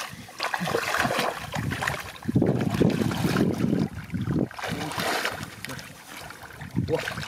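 Splashing and sloshing of shallow muddy paddy water as people wade and grope through the mud by hand, heaviest from about two to four and a half seconds in.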